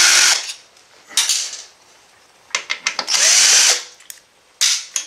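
Cordless drill-driver spinning in short bursts as it backs screws out of a laser printer's sheet-steel frame: about four runs, the longest about three seconds in, each with a faint sweeping motor whine.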